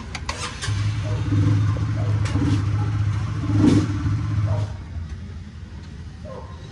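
A motor runs steadily for about four seconds, starting about a second in and cutting off sharply, with a few sharp metallic clicks along the way.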